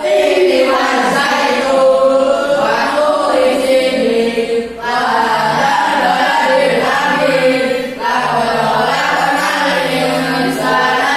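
A group of voices singing a melody together, with two short pauses for breath partway through.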